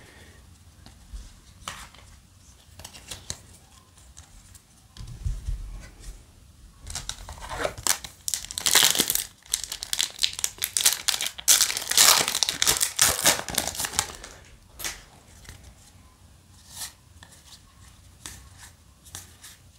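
Foil Yu-Gi-Oh! booster pack crinkling and tearing as it is ripped open by hand, loudest for about seven seconds in the middle. Quieter rustling and clicking of trading cards being handled before and after.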